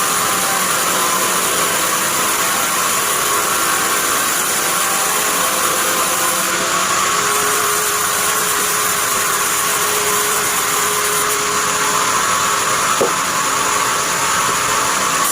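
Sawmill bandsaw machine running with a loud, even, steady noise; a faint steady hum joins for a few seconds in the middle.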